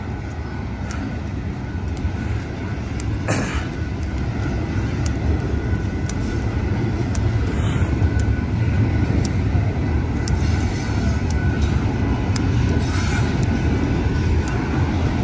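Union Pacific double-stack intermodal freight train rolling past a grade crossing: a steady rumble of wheels on rail that grows louder over the first half and then holds, with scattered sharp clicks.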